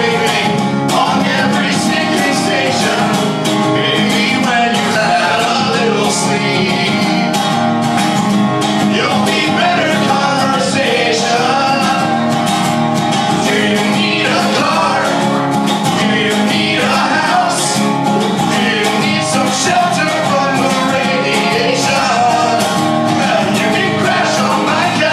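A live guitar-and-vocals duo performing a song: a strummed guitar accompanying male singing.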